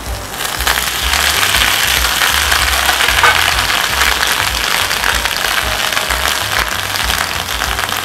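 Sliced onions frying in hot oil in a frying pan: a loud, steady sizzle that swells up about half a second in as the onions hit the pan.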